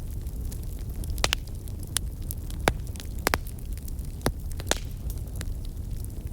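Campfire crackling, with sharp pops of burning wood scattered irregularly through, over a steady low rumble of wind.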